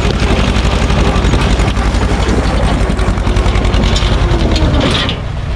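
Small Same tractor's diesel engine running as it pulls a trailer loaded with river stones across gravel. The low engine note drops away about five seconds in.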